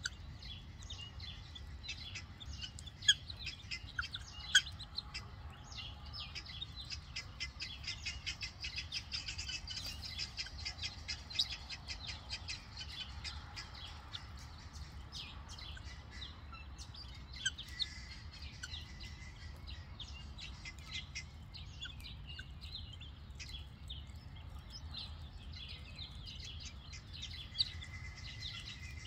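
Helmeted guineafowl and their young keets giving many rapid, high chirps and peeps, thickest for several seconds early on, with a few louder sharp chips, over a steady low rumble.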